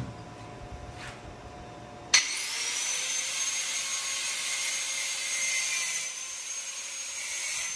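A bench grinder switches on about two seconds in, its high whine rising as it spins up, then runs with a steady hiss of its wheel grinding steel rod; near the end it is switched off and the whine falls away as it winds down.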